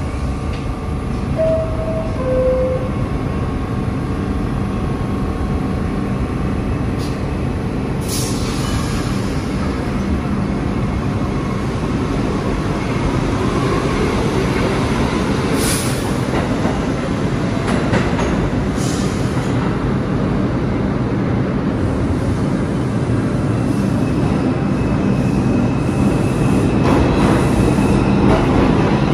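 R62A subway car's two-note descending door chime, then the train pulls out with steady motor hum and wheel rumble, with a few brief high squeals. Near the end the rumble of an R142 express train approaching on the next track grows louder.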